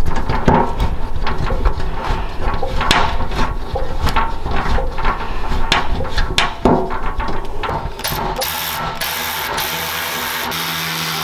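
Irregular clicks and knocks of bolts, washers and nuts being handled and fitted against an aluminum roof panel. About eight seconds in, an electric ratchet with a 10mm socket starts running steadily, spinning a nut onto a roof bolt.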